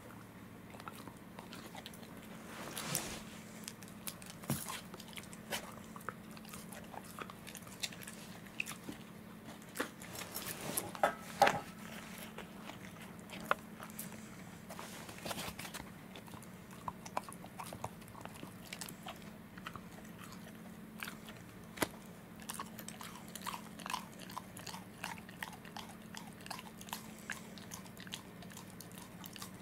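Welsh corgi chewing on a strip of rawhide chew held in a hand: irregular crunching, clicking bites, with a louder flurry of crunches about ten to twelve seconds in.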